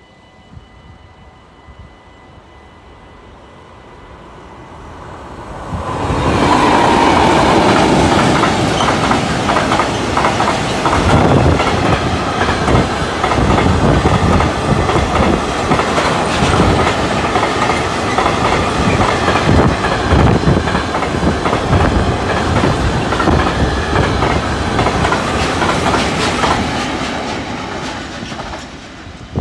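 A freight train of tank wagons approaches and passes over the level crossing, its wheels clattering rhythmically over the rail joints. It grows louder over a few seconds and stays loud for about twenty seconds, then fades near the end as the last wagons go by.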